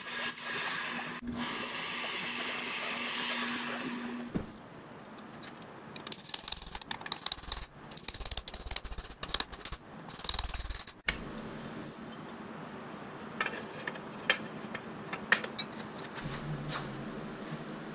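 Milling machine spindle running as a twist drill cuts into an aluminum adapter plate, a steady hum that stops about four seconds in. After that come bursts of metallic clinking and rattling, then scattered clicks and knocks from metal parts and tools being handled.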